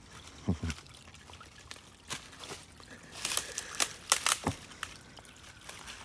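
Shallow creek trickling over rocks, steady and faint, with a run of sharp crackles and knocks about two to four and a half seconds in.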